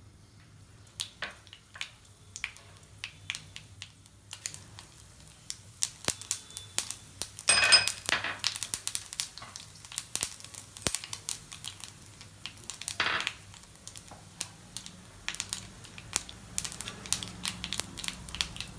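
Mustard seeds popping and spluttering in hot ghee in an iron kadai, sharp pops starting about a second in and growing thicker and faster. Two louder sizzling rushes, near the middle and a few seconds later, fit cumin and black pepper going into the hot ghee.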